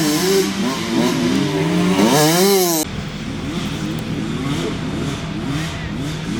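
Off-road racing vehicle engines revving, the pitch climbing and dropping over and over as the throttle comes on and off. A little under three seconds in, the sound cuts abruptly to another engine that is a little quieter and less hissy, still revving up and down in quick swings.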